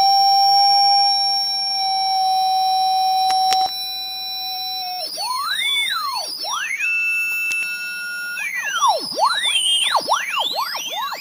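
Homemade inverter-bridge LCR resonant circuit with phase-locked-loop drive, giving off a steady electronic tone with overtones, with a click about three and a half seconds in. From about five seconds the tone breaks into many whistling pitches that sweep up and down and cross one another as the drive frequency is adjusted.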